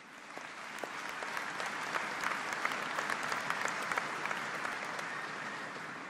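Large audience applauding, swelling over the first second or two and tapering off near the end.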